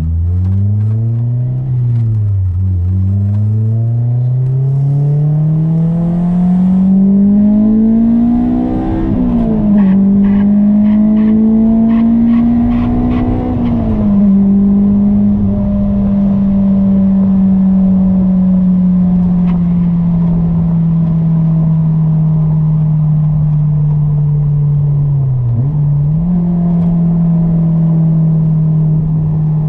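Honda S2000's four-cylinder engine, breathing through an AEM V2 cold air intake, pulling up through the gears. The engine note climbs and drops back at each of three upshifts. It then holds a steady cruising note that sags slowly, with one brief dip and recovery near the end.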